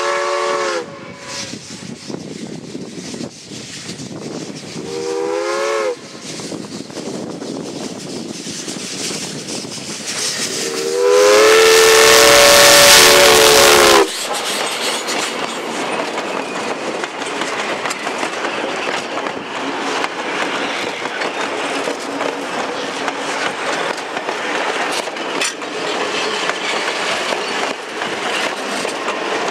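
Whistle of the 1882 4-4-0 steam locomotive sounding a chord of several notes in three blasts. The third blast is the longest and loudest and cuts off suddenly as the engine draws level. Then comes the steady rumble and clickety-clack of the tender and wooden coaches rolling past on the rails.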